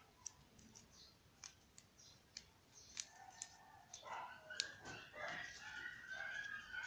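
A few sharp, light clicks in the first half, then a rooster crowing from about three to four seconds in.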